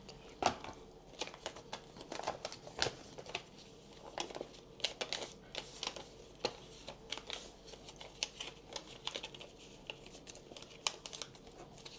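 Packaging being handled, crinkling and rustling in irregular small crackles with a few sharper clicks.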